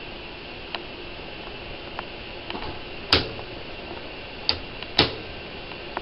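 Plastic K'nex model engine turning over after its propeller is spun by hand, its parts giving off irregular clicks and snaps, with two loud sharp snaps about three and five seconds in.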